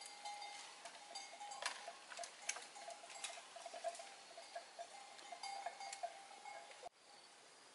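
Scattered light clicks and knocks of bamboo poles being handled and fastened overhead, over a faint steady wavering drone. About seven seconds in the sound cuts to a steady high buzz.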